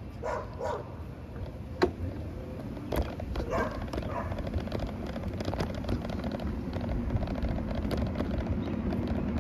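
Low rolling and wind noise from riding the Rambler 16 along the pavement, growing louder toward the end, with two short calls at the start, a brief call about three and a half seconds in, and sharp clicks about two and three seconds in.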